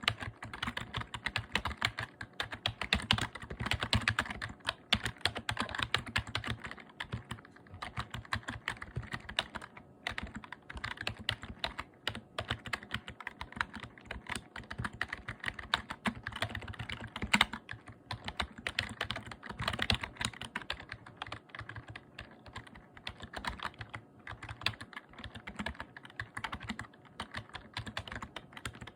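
Membrane computer keyboard being typed on fast and continuously, a dense run of soft key presses.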